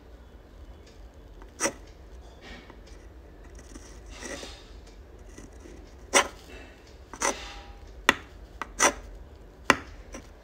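Uni-ball fine-tip pen writing on textured sketch paper: soft scratching of the strokes, with about six short sharp ticks spread through the second half as the tip strikes the paper.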